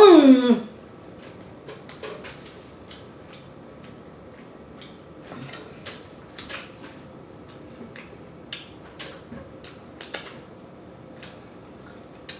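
Close-miked eating of pizza: scattered small clicks and wet smacks of chewing and lip-smacking. A brief voiced sound that slides down in pitch comes at the very start and is the loudest thing.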